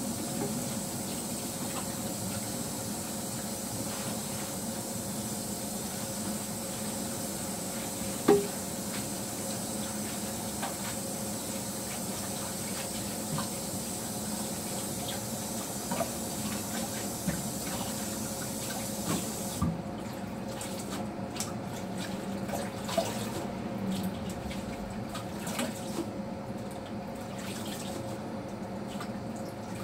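Kitchen tap running into the sink while hands wash produce under it, with scattered clinks and knocks; a sharper knock comes about a third of the way in. About two-thirds of the way through the hiss of the running water drops away, leaving the clatter of handling in the sink.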